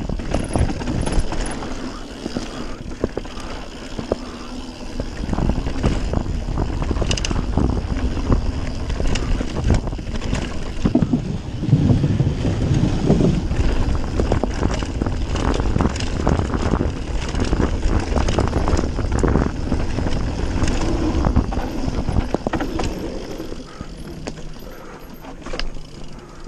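Radon Swoop 170 mountain bike riding fast down a dirt forest trail: tyres rumbling over the ground, with frequent rattles and clacks from the bike over bumps. The noise eases off near the end as the trail opens onto a smoother path.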